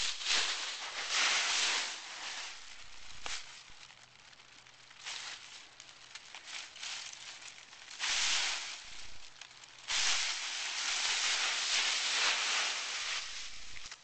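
Dry fallen leaves crunching and rustling as a black Labrador puppy bounds into and burrows through a leaf pile. The rustling comes in bursts: one in the first couple of seconds, a short one around eight seconds, and a longer one from about ten seconds until shortly before the end.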